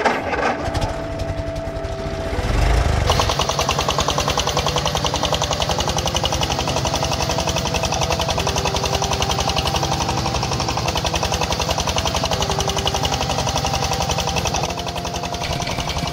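Tractor engine sound effect, a rapid, even chugging. It revs up about two to three seconds in, runs steadily, and eases off near the end. Background music with a simple melody plays underneath.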